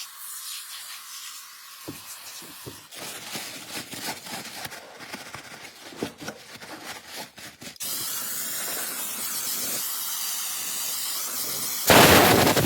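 Scattered scraping and clicks, then a steady hiss from about eight seconds in, turning into a much louder hiss near the end. This is a spray or air jet cleaning dirt and rust out of the ABS wheel-speed sensor mount.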